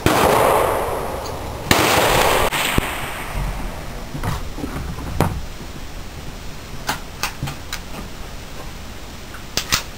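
Two loud gunshots about a second and a half apart, each echoing for about a second, followed by several fainter sharp pops and clicks.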